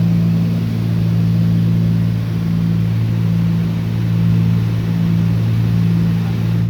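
Cessna 310's twin piston engines and propellers droning steadily in cruise descent, heard inside the cabin, with a slow waxing and waning in the drone.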